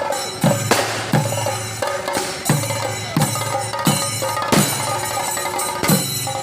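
Music with a steady drum beat: deep booming bass-drum hits come about every two-thirds of a second under sustained instrument tones.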